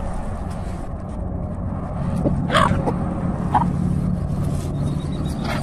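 Two short, falling chicken squawks, one about two and a half seconds in and a softer one a second later, over a steady low rumble.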